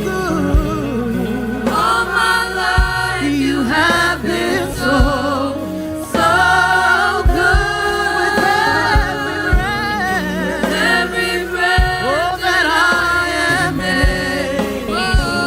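Live worship music: singing voices over a band, with bass drum hits now and then.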